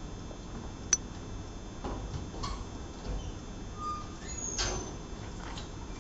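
Quiet room tone with one sharp click about a second in, then a few soft scuffs and knocks.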